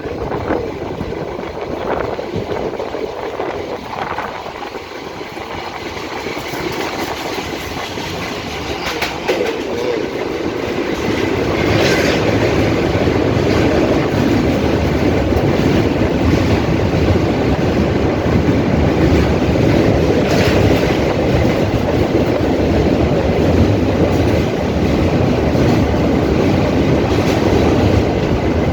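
A train running on its rails, a steady rumble with occasional wheel clacks, growing louder about a third of the way in.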